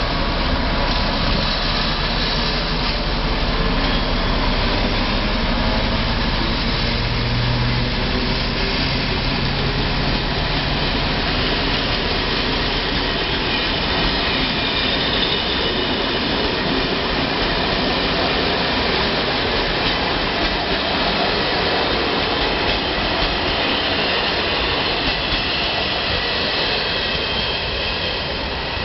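ČD class 754 diesel locomotive pulling away with a passenger train, its diesel engine working under power as it passes, the engine note stepping up several seconds in. This is followed by the steady rumble of the coaches rolling over the rails, easing slightly near the end as the train moves off.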